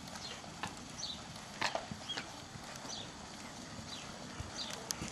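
Soft hoofbeats of a ridden horse moving over a sand arena, fairly quiet, with a few sharp clicks among them.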